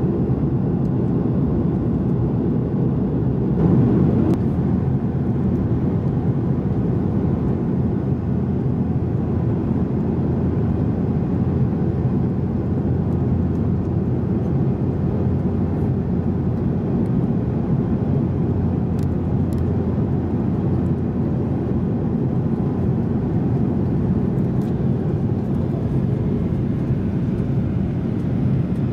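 Steady low rumble of engine and airflow noise inside the cabin of an Airbus A330-300 on approach, swelling briefly about four seconds in.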